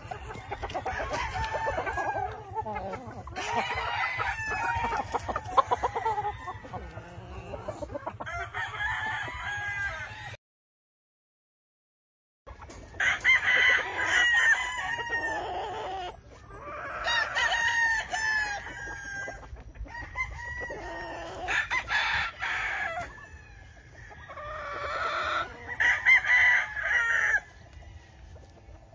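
Several gamefowl roosters crowing over one another, with clucking in between. The sound cuts out completely for about two seconds a third of the way in, then the crowing carries on.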